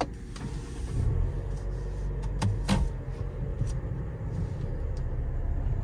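Steady low rumble of a Mercedes-Benz car heard from inside the cabin, with a few light clicks scattered through it.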